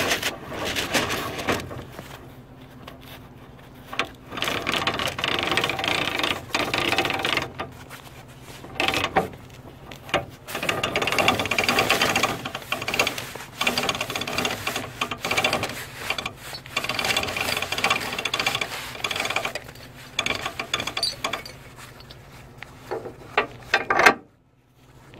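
Retract-A-Strap self-recoiling flatbed winch reeling in its strap, its mechanism whirring and clicking in spells that stop and start, falling quiet about a second before the end.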